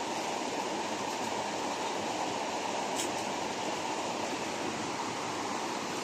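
Steady rushing of a waterfall, an even hiss of falling water heard from the steep trail above it.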